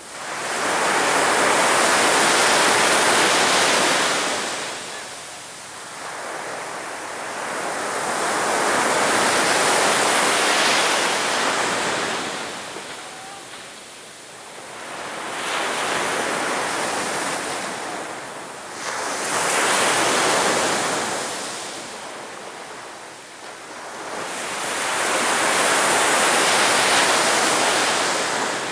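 Sea waves breaking on a beach, each wash of surf swelling and fading, five times about six seconds apart.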